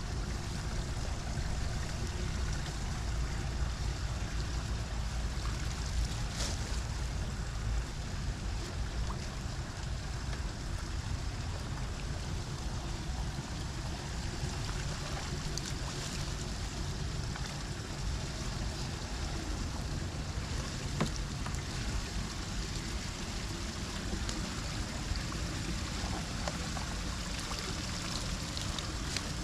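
Steady rush of floodwater draining into a cleared storm drain, with a low rumble that eases after about eight seconds.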